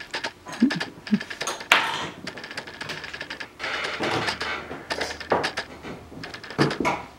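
Irregular clicks, taps and knocks, with a few short squeaks among them.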